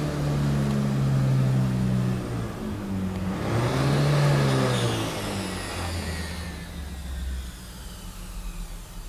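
2006 Nissan Frontier's 4.0 V6 engine revving: the engine speed drops about two seconds in, revs up once more around the middle, then falls back toward idle near the end. A faint high whine rises and falls with the revs, which the owner blames on a failed torque converter.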